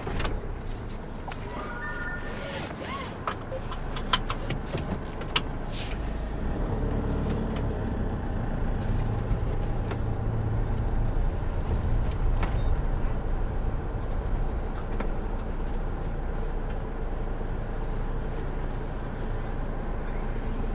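Motorhome engine running, heard from inside the cab, as the vehicle pulls away and drives slowly. There are a few sharp clicks in the first six seconds, and the low rumble gets louder from about six seconds in.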